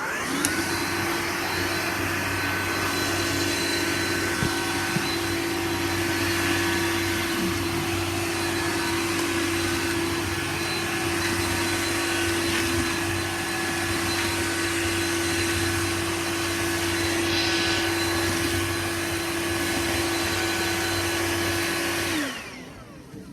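Bosch vacuum cleaner switched on: its motor spins up within the first second to a steady whine with a rush of air, runs evenly, and is switched off near the end, winding down with falling pitch.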